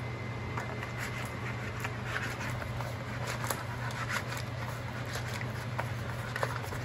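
Sauce-coated fried chicken wings squelching and clicking as they are tossed by hand in a plastic bowl of creamy sauce, many small irregular wet sounds, over a steady low hum.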